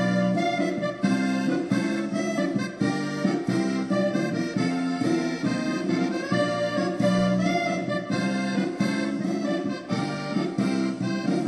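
Instrumental accordion music with a steady rhythmic pulse.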